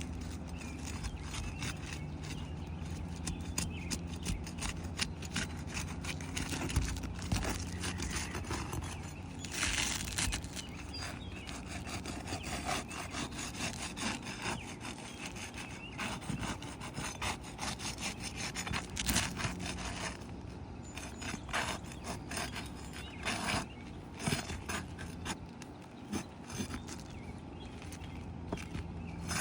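Asphalt roof shingles being unsealed and pried up: irregular scraping and rasping with sharp cracks as the sealant strips let go, with a few longer, louder scrapes.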